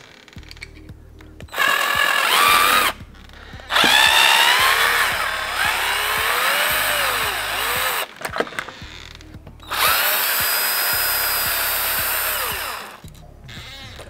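Pink Hippoo cordless drill turning the deadbolt's mounting screws in three runs of a few seconds each. Each run starts with a rising whine as the motor spins up.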